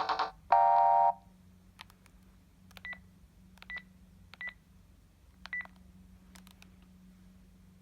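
Panasonic KX-TGA850E cordless phone handset: the last notes of a ringtone melody end about a second in. Then come light button clicks, four of them carrying a short high key beep, as the handset's keys are pressed.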